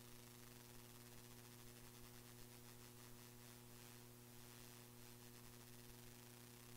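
Near silence: a faint steady hum with a few evenly spaced overtones, under a low hiss.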